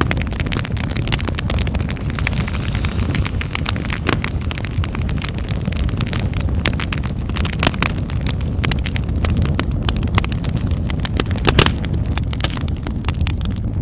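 Wood fire in a fireplace crackling: rapid, irregular pops and snaps over a steady low rumble of the flames, with a few louder pops near the end.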